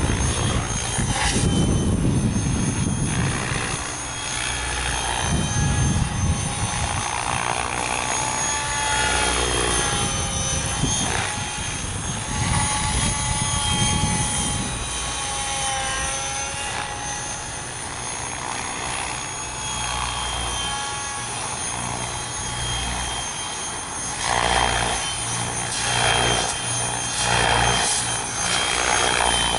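Mikado Logo 600 SE electric radio-controlled helicopter in flight: the motor's whine and the main rotor blades' whooshing, swelling louder as it makes close passes near the start, about six seconds in, and again in the last few seconds.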